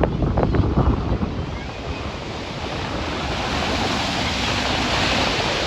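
Ocean surf breaking and washing up the beach, with a wave's hiss building toward the end. Wind buffets the microphone with a low rumble.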